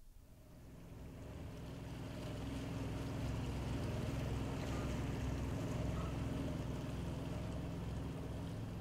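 Motorboat engine running steadily under way, with a steady hiss over its low drone, fading in over the first few seconds.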